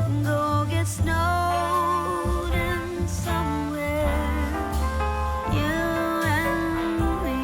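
Background music with singing: a melodic vocal line over sustained instruments and a steady bass.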